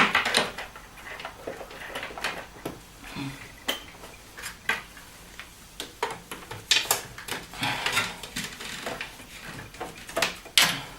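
Irregular light metallic clinks, clicks and knocks of hands working parts and cables in and around a steel computer case.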